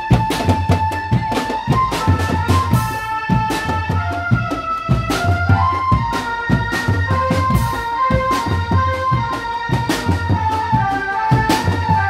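Street drum band playing: bass and snare drums beat a steady, driving rhythm under a melody of held notes.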